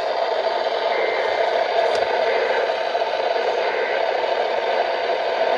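Steady radio static, an even hiss with no voice, from a weather radio receiver tuned to a NOAA Weather Radio station after the warning message ends.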